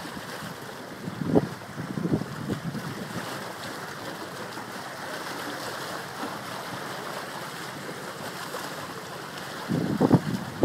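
Steady wash of ocean surf and wind across the microphone, with a few brief louder low bumps about a second in and again near the end.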